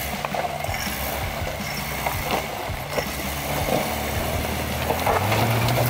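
Toyota Land Cruiser 80-series engine running at low revs while the truck crawls over loose rocks, with gravel crunching and stones clicking under the tyres. The revs rise about five seconds in.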